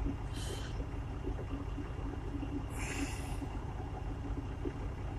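Steady low rumble of a truck's idling engine heard from inside the cab, with two brief soft hisses.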